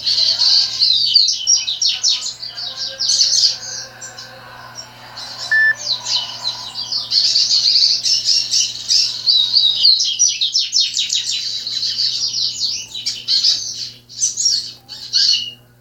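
Pet songbirds singing back and forth in rapid, high chirping trills, with short lulls between phrases. A faint steady low hum lies underneath.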